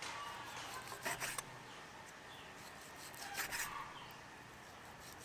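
Knife slicing through raw beef liver on a wooden chopping board: two short bouts of cutting, about a second in and again a little past three seconds.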